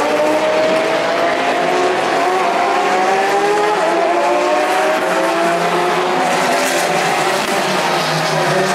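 Several endurance race cars accelerating out of the final corner one after another, their engines overlapping and each climbing steadily in pitch as it pulls away.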